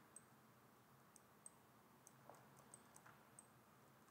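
Near silence with about ten faint, irregular clicks from a computer mouse being worked while sculpting.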